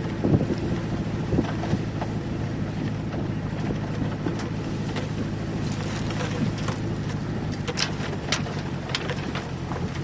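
ZAZ-968 Zaporozhets' air-cooled V4 engine running steadily as the car drives over rough ground, with scattered sharp knocks and rattles, most of them in the second half.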